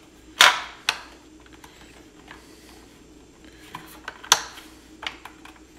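Metal wire hanging hook being swung against the hard plastic housing of a Milwaukee M18 RADIUS site light: a few sharp clicks and knocks. The loudest comes about half a second in and another just past four seconds in, with lighter ticks between.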